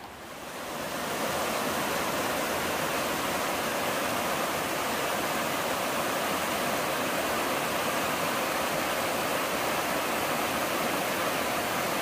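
Shallow mountain stream rushing over rocks and riffles: a steady rush of water that swells up over the first second and then holds even.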